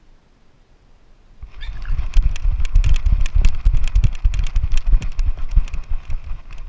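A dog's rapid running footfalls with heavy thumping and knocking on a GoPro, starting about a second and a half in and stopping near the end.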